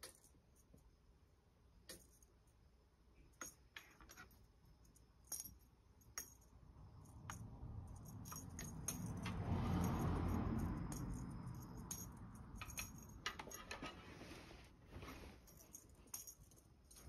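Light clinks and jingles on and off from a feather-wand cat toy being waved. In the middle, a broad rushing sound swells for a few seconds and fades.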